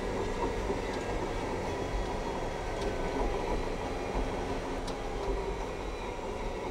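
Cat large track-type dozer running under load as its blade cuts into and fills with loose material: a steady engine and track drone, heard from inside the cab.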